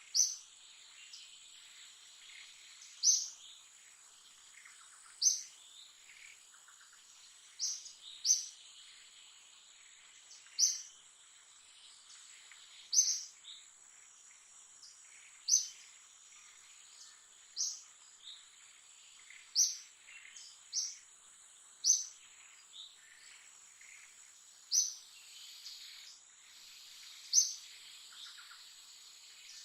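Short, high chirping calls repeated about every two seconds, some in quick pairs, over a steady high-pitched insect-like drone and a faint hiss.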